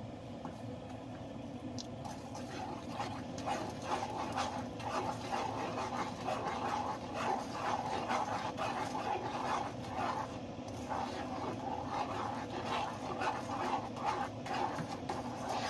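Metal spoon stirring a saucepan of sugar, corn syrup and melting butter, scraping round the pot in quick strokes of about three a second, starting about two seconds in.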